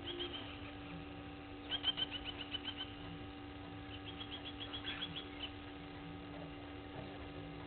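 Blacksmith lapwings calling: three quick runs of sharp, metallic 'tink' notes, the loudest about two seconds in. A steady low electrical hum lies underneath.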